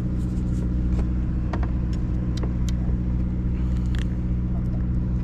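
Sportfishing boat's engine running with a steady low hum, with scattered short clicks and taps on deck over it.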